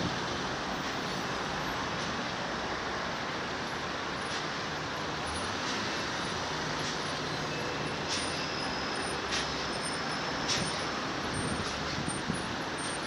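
Steady road noise of a car driving, tyres and engine heard from inside the taxi, with a few faint ticks in the second half.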